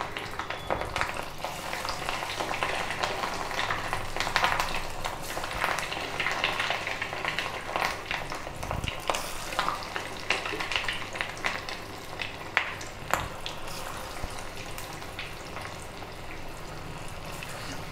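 Fish-roe and gram-flour fritters deep-frying in hot oil, a steady sizzle full of small crackles, with a couple of louder pops a little past the middle.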